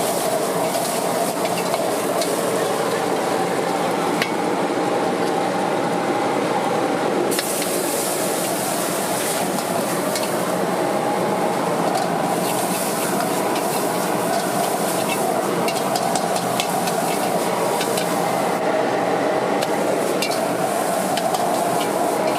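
Stir-frying in a hot wok: food sizzling steadily while a metal spatula scrapes and clinks against the wok again and again.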